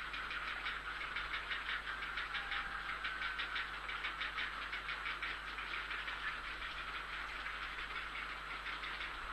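Grey heron chicks giving their rapid, dry ticking chatter, many clicks a second without a break: the begging call of nestlings wanting food.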